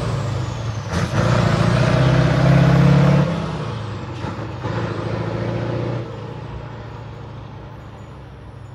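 Scania 142's V8 diesel engine pulling away under load, a deep steady note with a brief dip about a second in. About three seconds in the note drops sharply, and it then fades steadily as the truck goes off into the distance.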